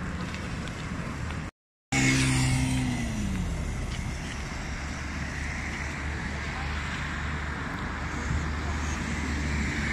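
Road traffic: a motor vehicle passes with its engine pitch falling about two seconds in, over a steady low rumble. The sound cuts out completely for a moment just before.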